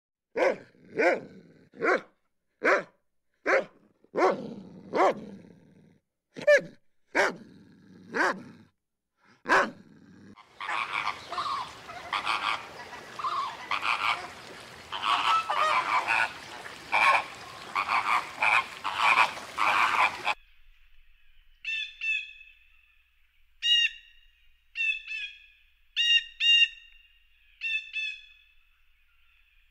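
First a dog barking in short, separate barks; then a flock of greater flamingos honking all together in a dense chatter that cuts off suddenly; then a Eurasian jay giving a string of short, high calls.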